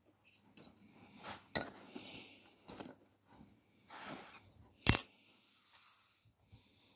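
Bassoon reed-making tools handled among wired reed blanks: a few scattered sharp metallic clinks, one much louder about two-thirds through, with soft rustling between.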